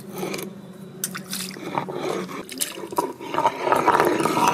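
Water poured from a bowl splashing and trickling over a stone grinding slab and its stone roller as a hand rubs the roller to wash them, louder in the second half.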